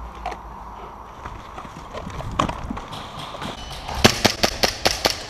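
A few isolated sharp clicks, then about four seconds in a rapid string of about eight sharp snaps, roughly six a second: an airsoft rifle fired in quick succession.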